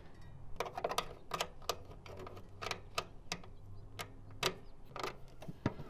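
A series of sharp, irregular clicks, about a dozen in all, as an Allen wrench turns and is reset in the retaining screws of a reel mower's side cover.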